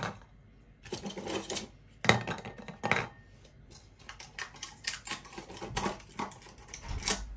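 Hard dried lentil dumplings (bori) dropped one by one into a ceramic bowl, each landing with a short knock, followed by a run of lighter clicks and taps.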